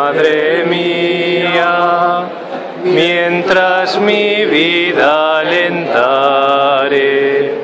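A group of Rocío pilgrims singing together in a slow, chant-like devotional song with long held notes, with a short break about two and a half seconds in.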